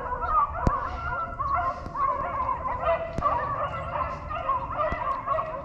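A pack of beagles baying together while running a rabbit, with many overlapping, rising-and-falling bawls and yelps that keep up without a break.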